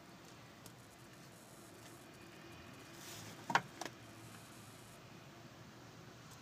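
Quiet car cabin with two short clicks a little past halfway, the first louder.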